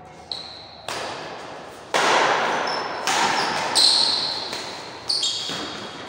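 Badminton rally: rackets striking the shuttlecock, about six sharp smacks roughly a second apart. Each hit rings on in the echo of a large hall, and some carry a short high ring.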